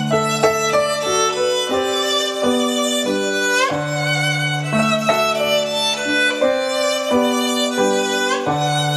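Violin music of held notes changing every half second or so, played back through a Phase Linear PL700 power amplifier driving Magneplanar speakers.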